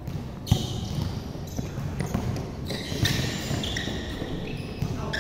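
Basketball game in play: the ball bouncing on a hard court amid players' running footsteps, with a loud thump about half a second in.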